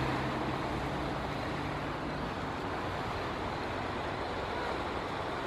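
Steady wash of surf on the shore. A faint low hum runs through the first two seconds or so, then stops.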